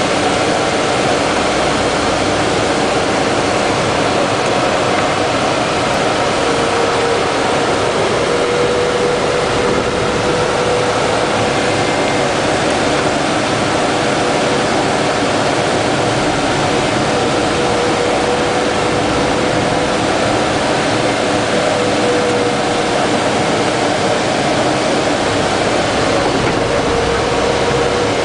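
Steady cabin noise of a military patrol vehicle driving at night: engine and road noise with a steady whine running through it.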